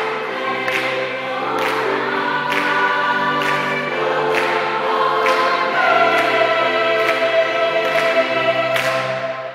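Gospel choir singing full chords over a sharp beat about once a second. A high voice joins about six seconds in, and the choir holds the closing chord until it cuts off at the end.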